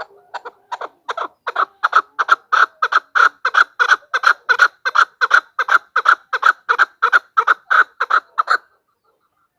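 Female chukar partridge calling: a long, even series of short notes, about three a second, growing louder over the first two seconds and then stopping about a second before the end.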